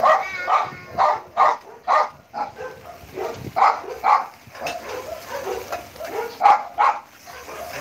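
Pet dog barking again and again in quick runs of short barks, about two a second, with brief pauses between runs: a dog that is hostile to people, barking at those nearby.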